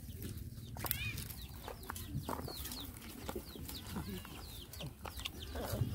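Birds chirping: many short, high calls in quick succession, some falling in pitch, over a low rumble.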